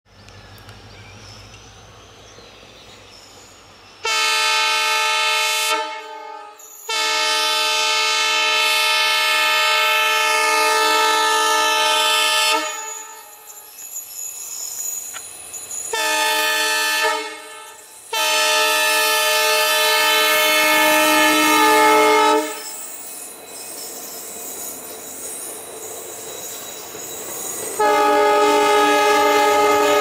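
Indian Railways WDP4D diesel locomotive's horn sounding in a series of loud blasts as the express approaches and runs through: a short blast about four seconds in, a long one of about six seconds, a short one, a longer one, and another starting near the end. Between blasts, the train's running noise and the coaches' wheels clattering over the rails.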